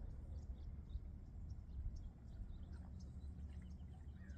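Light wind rumbling on the microphone, with small birds chirping faintly throughout in many short, high notes.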